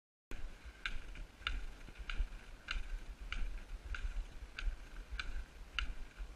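A hiker's footsteps on snow: a short squeaky crunch with each step, evenly paced at about one and a half a second, over a low rumble. The sound starts abruptly about a third of a second in.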